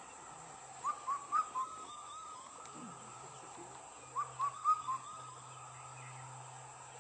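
Indian cuckoo giving its four-note whistled call, 'bou-kotha-kao', twice about three seconds apart, over a faint steady low hum.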